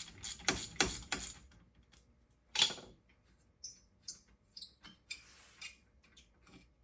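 Ratchet wrench clicking in a quick, even run of about three clicks a second as a brake caliper bolt is turned, stopping about a second in. About 2.5 s in there is one louder metal clank, followed by a few light metallic clinks.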